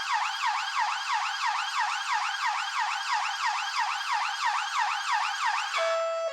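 Electronic police siren in a rapid yelp, its pitch sweeping up and down about four times a second. Near the end it cuts off and a steady tone begins.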